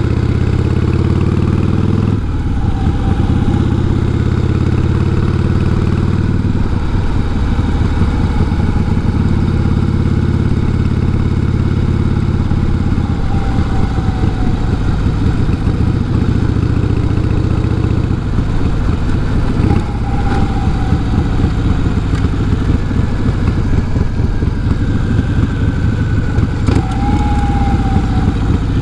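Harley-Davidson Heritage Softail with sidecar under way, its 1340 Evolution V-twin running steadily, the engine note shifting in pitch a few times, about 2, 6, 13 and 18 seconds in.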